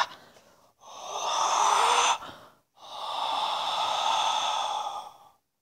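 A person breathing as loudly as their speech: the tail of one breath, then two long breaths, the second lasting about two and a half seconds.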